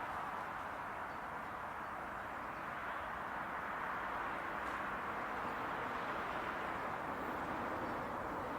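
A train rolling past: a steady, even rushing noise of wheels on rails, with no horn or engine tone.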